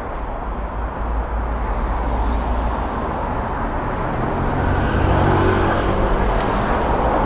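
Busy street ambience under a steady low rumble of a motor vehicle's engine, growing a little louder in the second half.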